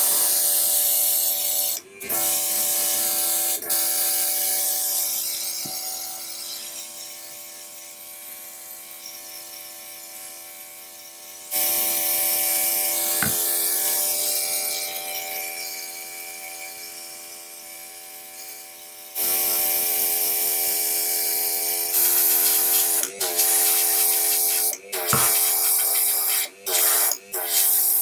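Worx MakerX cordless airbrush, its small built-in compressor running with a steady hum while paint sprays out in loud hissing spells. Each spell starts sharply and tails off. Near the end the spray is triggered on and off in short bursts.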